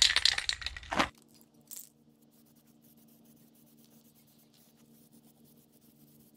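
Aerosol spray-paint can (matte black) shaken hard, its mixing ball rattling rapidly for about a second. It then drops to a faint hiss of the paint being sprayed onto a steel wheel.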